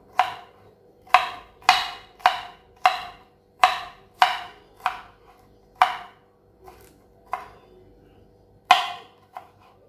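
Kitchen knife chopping garlic cloves on a wooden cutting board, the blade knocking on the wood about every half second, then slowing to a few scattered chops after about six seconds.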